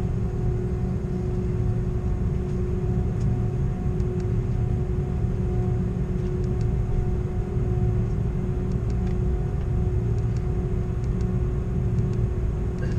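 Airbus A330 cabin noise while taxiing: a steady low rumble with a constant engine hum.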